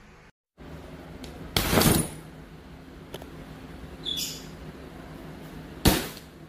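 A 12-rib automatic umbrella springing open with a quick whoosh and snap about a second and a half in, then snapping shut near the end. A lighter click and rattle falls in between.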